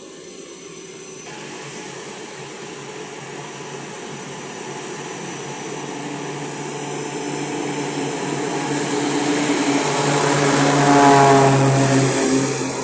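Crop-dusting airplane's engine and propeller at takeoff power, growing steadily louder as it comes closer, loudest about ten to eleven seconds in, then falling away quickly near the end.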